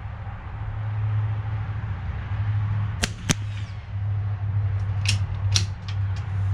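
A single sharp shot from a Bergara B14R .22 rimfire bolt-action rifle about three seconds in, with a lighter click just before it. A few lighter clicks follow near the end, over a steady low hum.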